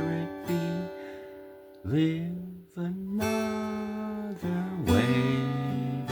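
Instrumental passage of a song: guitar chords strummed a few times and left to ring out.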